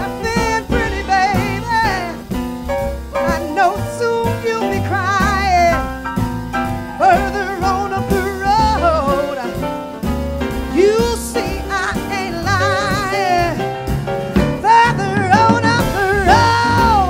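Live blues performed by a female vocalist with a jazz piano trio: her voice sings sustained lines with wide vibrato and sliding pitch over piano, upright bass and a drum kit.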